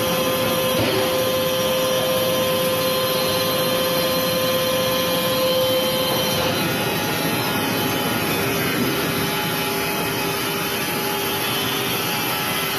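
Wood-Mizer industrial band sawmill running steadily, a continuous machine noise with a steady whine that shifts slightly lower a little past halfway.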